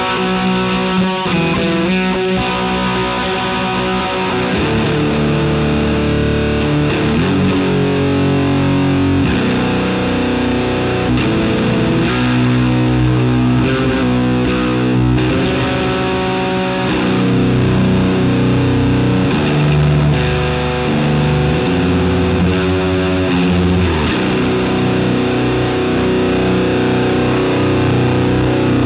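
Electric guitar played through a Bass Driver and Hull Fuzz pedal wired in series, into an OR120 clone amp recorded through a cab simulator: distorted, fuzzy riffs with held notes and chords that change every second or two.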